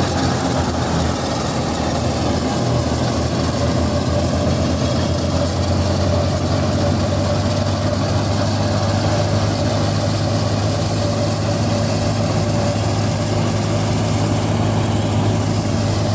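Wheat thresher running steadily, powered by a Massey Ferguson tractor engine: a constant low hum with a continuous noisy rush over it as wheat is fed through.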